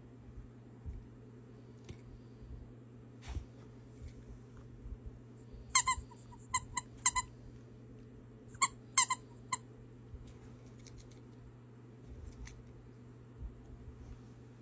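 Squeaker in a plush lamb toy squeezed in quick short squeaks: a run of about five about six seconds in, then three more a couple of seconds later.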